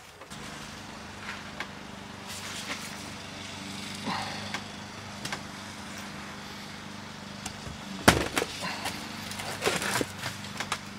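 A steady low motor hum runs throughout. About eight seconds in there is a sharp knock, then a few lighter knocks and scrapes near the end, as the wooden flask of a sand mold is unbolted and its halves are lifted apart.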